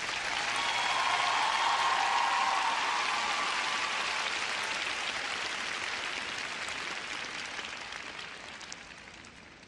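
Arena audience applauding a finished figure skating programme. The applause swells over the first two seconds, then slowly fades away.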